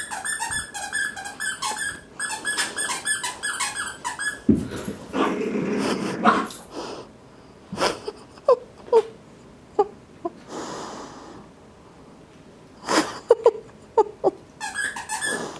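Small dogs playing and tussling over a stuffed toy: rapid high squeaky whines in the first few seconds and again near the end, with rustling, wheezy snuffling breaths and a few short whimpers in between.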